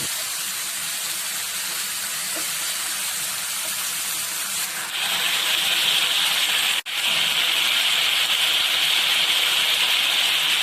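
Shredded potatoes frying in hot oil in a frying pan: a steady sizzling hiss that grows louder about halfway through, with a momentary break shortly after.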